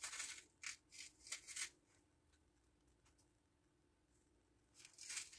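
Fingers picking gold sprinkles out of an open container, heard as a few short, dry rustles in the first two seconds and one more just before the end.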